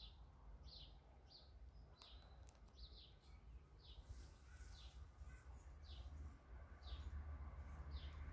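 A bird calling over and over, a short falling chirp about once a second, faint against a low rumble that builds toward the end.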